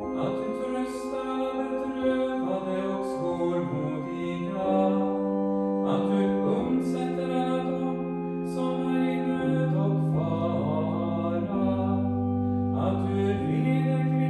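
Church music: held organ chords changing every second or two, with singing over them.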